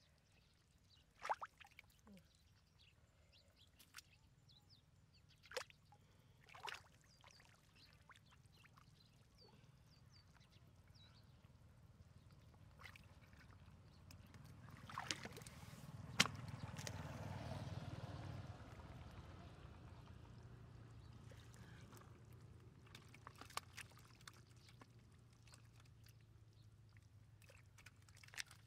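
Faint sloshing and splashing of shallow muddy water as hands grope through it for fish: a few small splashes in the first seven seconds, then a longer, louder slosh about halfway through.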